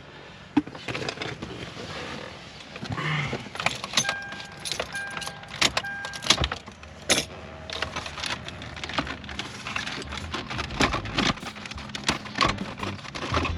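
Irregular clicks, knocks and rattles of wiring connectors and dash parts being handled and plugged in behind a car's head unit, with three short electronic beeps about four to six seconds in.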